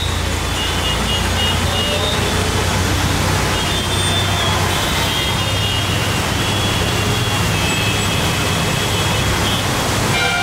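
Steady traffic noise from a congested road: many vehicles running on a wet road, an even, unbroken roar of engines and tyres.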